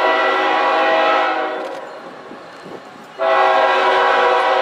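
Locomotive air horn sounding two long blasts of a multi-tone chord: the first fades out about a second and a half in, and the second starts abruptly about three seconds in.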